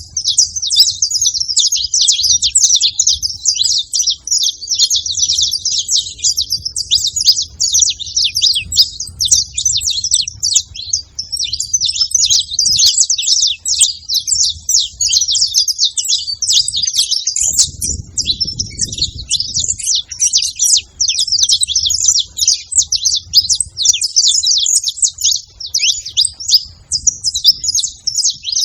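Several saffron finches chirping and singing together in a dense, unbroken high twittering.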